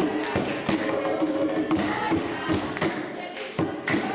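Group singing of a traditional Ethiopian folk song over heavy, rhythmic thuds, about three a second.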